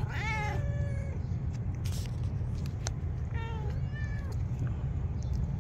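Stray cats meowing: one meow at the start, then two more about three and a half seconds in.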